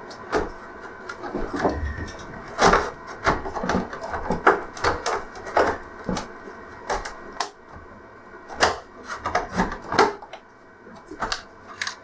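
Irregular sharp plastic clicks, creaks and knocks as an LCD TV's plastic bezel and back casing are pried and tugged at their snap clips. The bezel will not release because two screws along the bottom are still in place.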